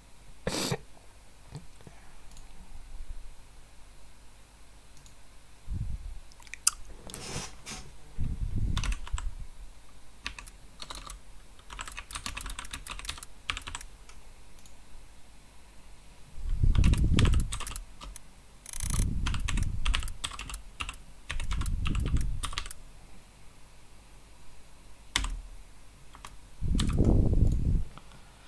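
Typing on a computer keyboard in scattered runs of clicks, with several louder dull low thumps in the second half.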